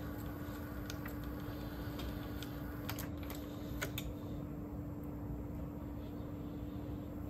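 Sony TC-K555ESL cassette deck's tape transport winding a test tape forward, a faint hiss broken by several sharp clicks about three to four seconds in, after which the hiss quietens. A steady low hum runs underneath.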